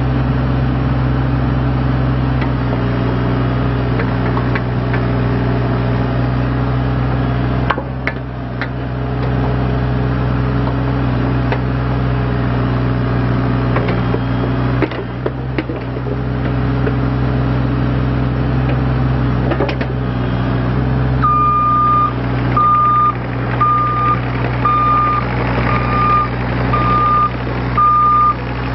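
Bobcat E32 mini excavator's diesel engine running steadily, with a few knocks. About 21 seconds in, its travel alarm starts beeping about once a second, the sign that the machine is moving on its tracks.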